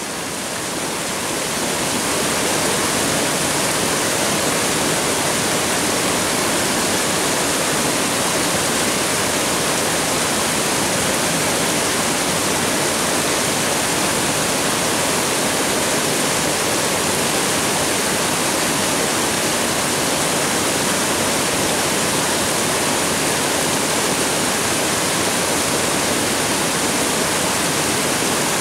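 Small spring-fed mountain cascade, a steady rush of falling water that swells up over the first two seconds and then holds even.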